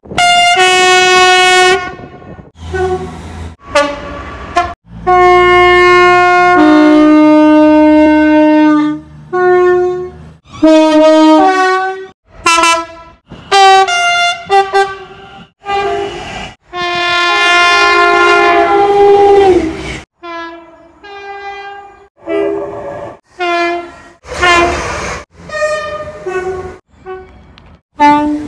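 British train horns sounding in quick-cut clips, one after another, from diesel freight locomotives and electric multiple units. Many are two-tone horns stepping from a high note to a low one, with one long blast in the second half that sags in pitch as it ends.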